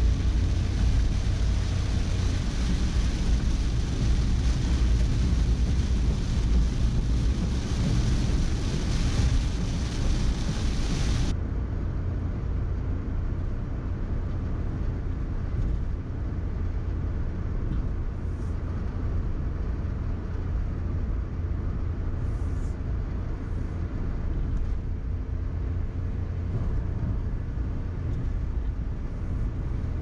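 Car cabin road noise while driving in rain: a loud hiss of rain and tyres on the wet road over a low rumble. About eleven seconds in, the hiss drops away abruptly, leaving a steadier low rumble of engine and tyres with a few faint ticks.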